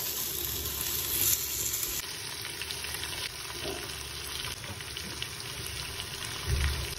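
Cubed raw potatoes hitting hot oil in a steel kadai and frying: a loud sizzle for the first two seconds that settles into a steadier sizzle. A short dull knock comes near the end.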